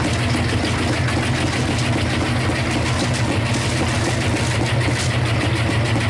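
Washing machine running with a loud, steady low rumble and rattle.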